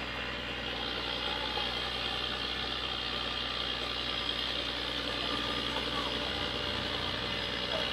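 Asphalt paving machine's engine running steadily, with a low throb coming in about six seconds in.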